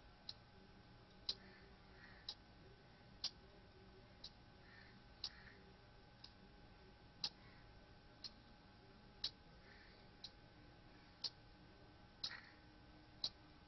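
Near silence, with faint sharp ticks about once a second, every other tick a little louder, over a faint steady tone.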